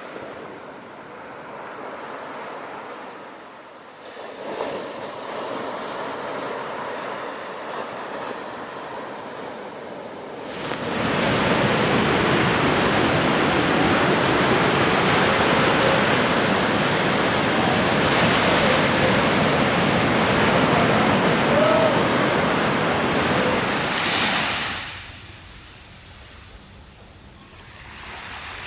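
Sea surf: waves washing in as a steady rush of water. About a third of the way in it swells into a much louder, fuller rush that holds for roughly fourteen seconds, then drops away abruptly near the end.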